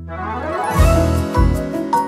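Background music: a tinkling, bell-like run of notes, joined by low bass notes about a second in.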